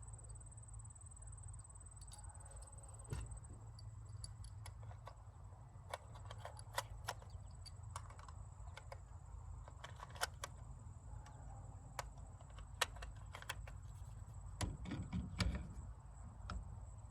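Scattered small metallic clicks and clinks of a rifle and shooting gear being handled at a bench, irregular and growing busier over the second half, over a steady low rumble.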